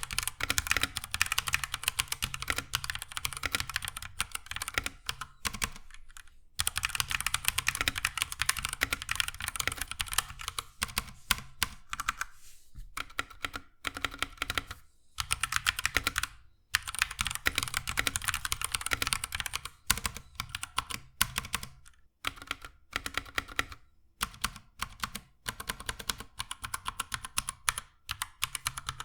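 Typing on a White Shark Shinobi 2 mechanical keyboard with YUSYA brown (tactile) switches: fast runs of key clicks in bursts, broken by short pauses.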